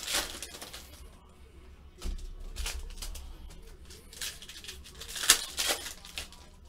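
Shiny plastic wrapper of a hockey card pack being torn open and crinkled by hand, with cards sliding against each other. The sharpest crinkling rips come at the start and twice about five seconds in.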